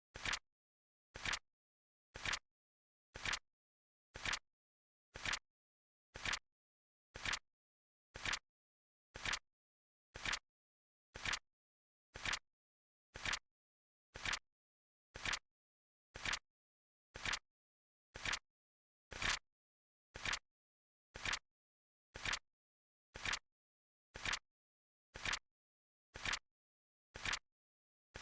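Flip clock timer's tick sound effect: a short, sharp click once a second, evenly spaced.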